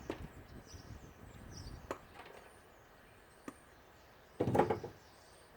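Scrap parts being handled during a teardown: a few light knocks, then a louder rough clatter lasting about half a second near the end.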